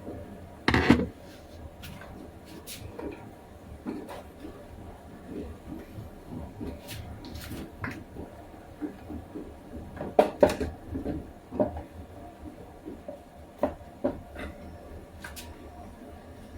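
Scattered knocks, clicks and clatter of hard objects being handled, with a sharp knock about a second in and a burst of several knocks around ten seconds in.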